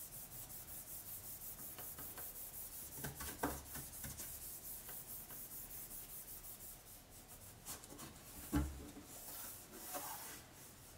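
Cloth rubbing briskly back and forth over the Asus UX31E's aluminium bottom cover to wipe it clean, about five strokes a second, with two soft knocks along the way.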